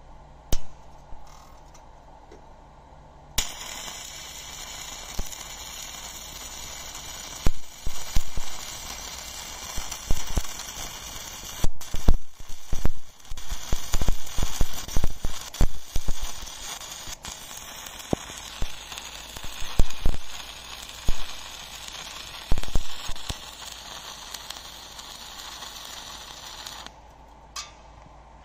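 Stick-welding arc from a thin 1 mm E6013 electrode on 1 mm sheet steel: a steady crackling sizzle with frequent irregular loud pops. It comes on after a couple of short bursts, runs for over twenty seconds and cuts off shortly before the end.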